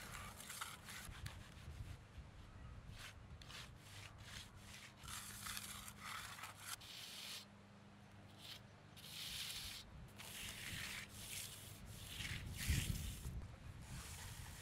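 Hand groover scraping along wet concrete in a series of short, irregular strokes as it cuts open the control joints. Wind rumbles on the microphone underneath, swelling near the end.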